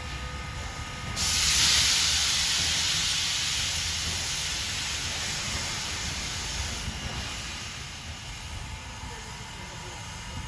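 Ex-Great Western No. 60, a 2-8-0 steam locomotive, blowing steam from its open cylinder cocks: a loud hiss that starts suddenly about a second in and slowly dies away.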